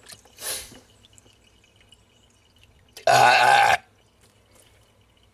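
A brief swish of water as hands move in a tub of soaking parts. About three seconds in comes one loud, short, burp-like sound lasting under a second.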